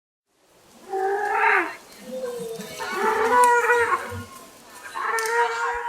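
Cattle mooing: three long, drawn-out calls with a short gap between each.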